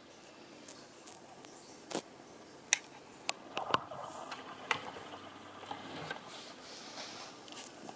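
Quiet handling noise: a handful of sharp, light clicks and taps as fingers handle a tinplate toy car on a wooden table.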